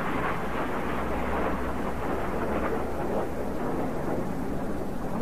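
Jet engines of the Red Arrows' BAE Hawk display jets overhead, heard from the ground as a steady, even rumble with no separate bangs or changes.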